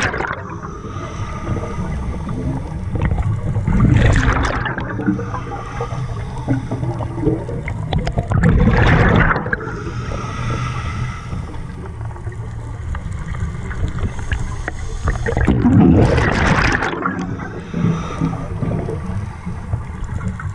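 Scuba diver breathing through a regulator underwater: exhaled bubbles gurgle loudly past the camera four times, near the start and at about 4, 9 and 16 seconds in, with a steady low rumble and a fainter hiss between breaths.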